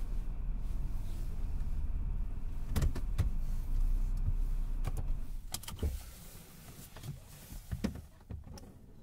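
Inside a car's cabin: a low, steady engine rumble while the car rolls to a stop, with a few clicks and knocks about three and five seconds in. About six seconds in the rumble falls away, leaving a quieter cabin with a few more clicks.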